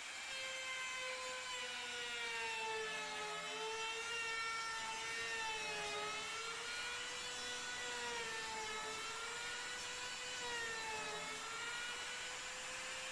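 Electric trim router running at high speed while cutting a hinge recess into the edge of a wooden door. Its high whine sags in pitch and recovers again and again as the bit bites into the wood.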